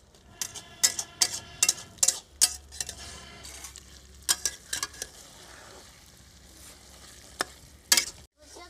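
Metal spatula scraping and knocking against a metal kadai as a fish and radish curry is stirred, with a quick run of clacks over the first few seconds and two more near the end. The curry sizzles steadily in the pan over a wood fire.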